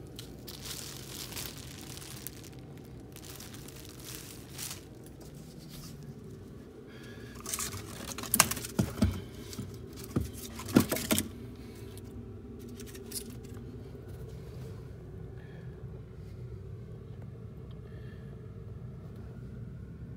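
Plastic trash bag rustling and crinkling as it is carried, then a cluster of sharp knocks and clatters about halfway through, the loudest sounds here, over a low steady hum.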